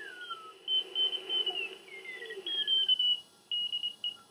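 Icom IC-705 transceiver's receiver audio while tuning across the 20-metre CW band: Morse code signals as high beeping tones broken into short dots and dashes, their pitch sliding downward as the dial is turned past them.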